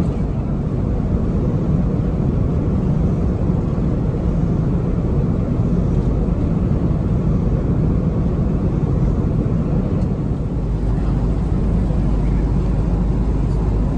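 Airbus A330-200 cabin noise in flight: a steady low rush of engines and airflow, with no change or sudden sounds.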